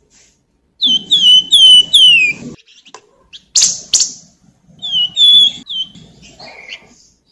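Javan fulvetta (flamboyan) singing clear, down-slurred whistled notes, four in quick succession and then three more after a short pause, with two sharp clicks in between.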